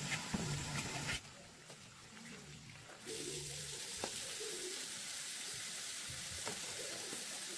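Steady rushing hiss of running water. It cuts out abruptly about a second in and comes back abruptly about three seconds in.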